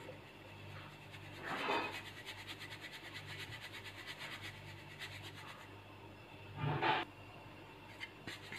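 Pearl millet (bajra) flour being sifted through a steel sieve shaken by hand over a steel pan: a faint, fast, rhythmic rasping of flour against the mesh, twice swelling into a louder swish.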